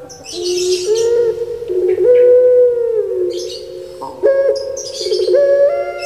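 A puter pelung (Barbary dove, Streptopelia risoria) cooing: a run of long, drawn-out coos, each held note stepping up or down in pitch, about five in a row.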